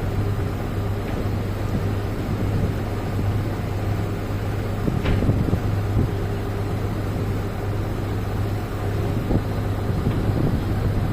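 A steady low engine drone with wind rushing over the microphone.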